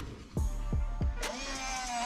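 Background music with a steady beat. About a second in, the Huina 1575 RC crane's electric gear motor starts with a brief rising whine and then runs with a steady whine as the gripper lifts a small toy truck.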